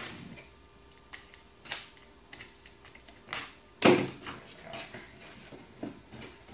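Pieces of cardboard being handled and fitted together by hand: scattered light taps and knocks, with one louder knock about four seconds in.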